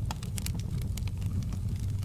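Wood fire crackling in a fireplace: irregular sharp snaps and pops over a steady low rumble of the burning fire.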